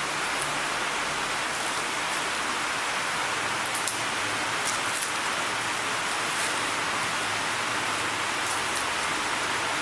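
Banana-leaf-wrapped sardines frying in oil on a hot tawa, sizzling steadily with scattered faint crackles.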